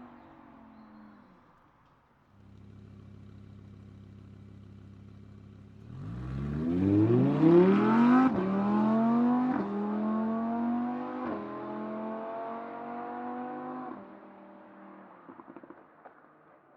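Audi R8 engine settling after a rev, then idling steadily. About six seconds in it pulls away hard, rising in pitch through three quick upshifts. Its note fades as the car drives off, then drops away when the throttle is lifted near the end.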